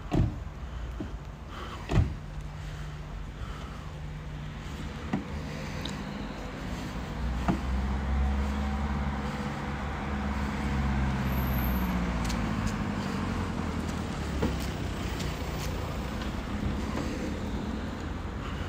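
A motor vehicle passes along the street: its engine and tyres swell over several seconds in the middle and fade away, against a steady low street rumble. A few sharp knocks come in the first seconds, the loudest near the start and about two seconds in.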